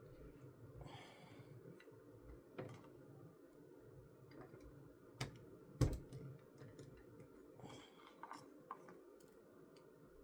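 Scattered clicks of plastic LEGO pieces being handled and snapped together, with brief rustles around one and eight seconds in and one sharper click about six seconds in.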